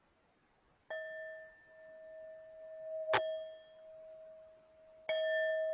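Tibetan singing bowl struck three times, each strike leaving the same steady ringing tone with higher overtones. The middle strike has a sharp metallic clang.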